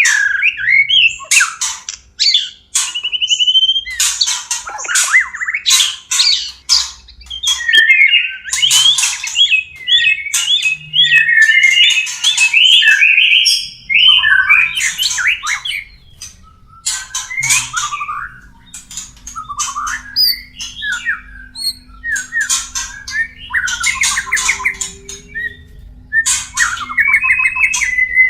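White-rumped shamas (murai batu) calling in breeding condition, the excited mating chatter of a pair. Rapid harsh chattering notes alternate with short whistled phrases that slide up and down in pitch.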